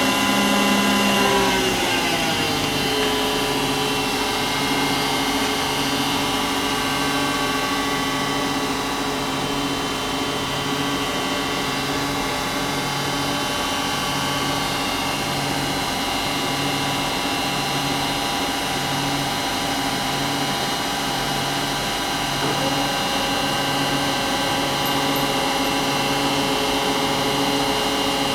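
Hwacheon Mega 95/3000 CNC flatbed lathe running a looped program: a steady whine of several tones from the spindle drive, which glide down in pitch about two seconds in as the spindle changes speed, over a low throb repeating about once a second. It runs smoothly, a machine that sounds great.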